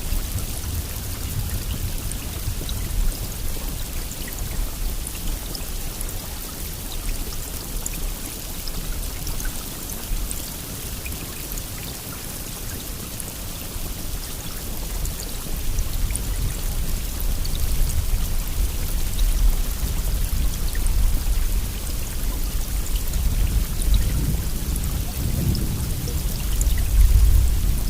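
Steady heavy rain, a continuous hiss, with a low rumble that swells in the second half and is loudest near the end.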